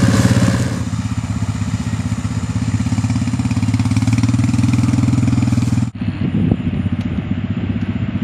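The boat buggy's Kubota diesel engine running at a steady speed. About six seconds in the sound breaks off sharply for an instant, then the engine carries on with a few knocks over it.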